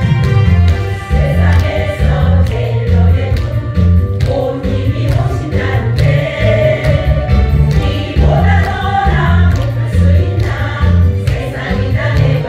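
Women's choir singing a Korean trot song together, over an accompaniment whose bass line steps to a new note about twice a second.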